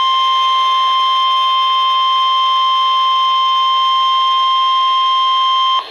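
NOAA Weather Radio 1050 Hz warning alarm tone: one steady high-pitched tone held unbroken for nearly six seconds, then cutting off just before the end. It is the alarm that signals a warning-level alert, here a severe thunderstorm warning.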